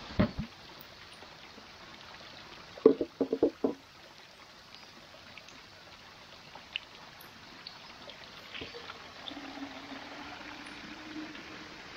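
Water running steadily, like a trickling spring. A couple of knocks come right at the start, and a quick cluster of five or six louder knocks comes about three seconds in.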